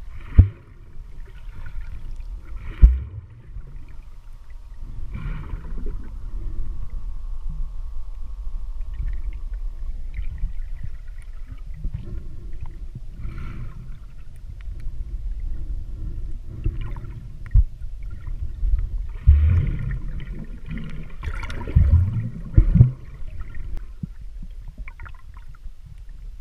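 Water sloshing and splashing in a cave pool, with a steady low rumble and irregular splashes. Several sharp knocks stand out, twice in the first few seconds and in a cluster near the end: bumps of handling on the microphone.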